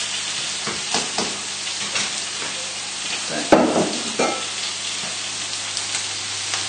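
Steaks searing in a very hot frying pan, sizzling steadily, with a few short knocks against a pan, the sharpest about three and a half seconds in.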